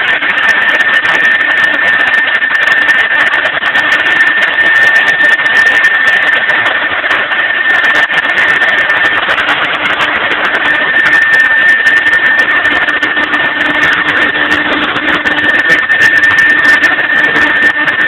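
Mahecor KM 30 CNC router running steadily: a constant high-pitched whine over loud continuous machine noise.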